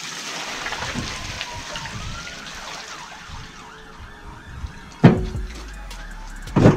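Dirty water and dissolved mortar slurry pouring out of a tipped steel cement mixer drum and splashing onto paving, followed by two loud knocks about five and six and a half seconds in as the drum is rocked back upright on its stand.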